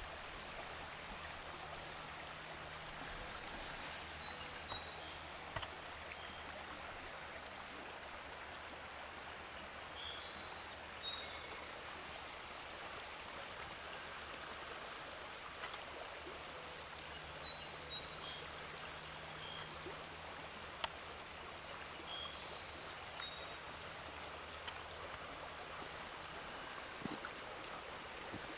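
A shallow river running over riffles, a steady rushing of water, with a thin steady high tone above it and scattered short bird chirps. A faint low hum comes and goes.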